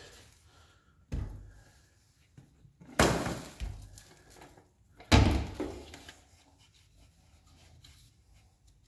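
Three sharp knocks and clatters from a Dirt Devil Endura Reach stick vacuum's dust bin as it is taken out and handled to get at dirt stuck inside. The middle knock is the loudest.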